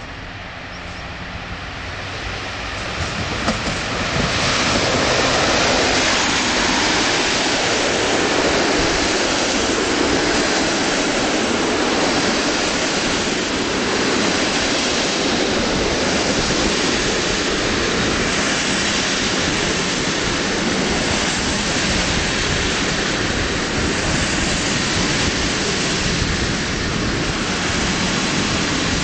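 Locomotive-hauled passenger train passing close by: the rush of the electric locomotive and its coaches swells over the first four seconds, then holds as a steady, loud noise of wheels running on the rails as the coaches go by.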